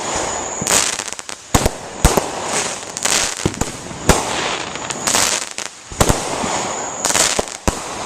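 Consumer fireworks going off: a continuous run of sharp bangs at irregular spacing, sometimes several a second, with crackling between them.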